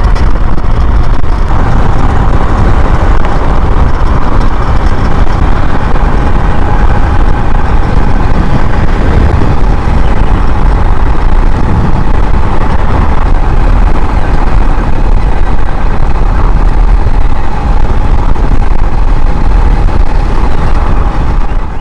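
Wind buffeting the microphone on a fast-moving electric bike, with a faint steady electric-motor whine underneath. The stock Tuttio motor is being pushed at about double its rated continuous power by a Far Driver controller.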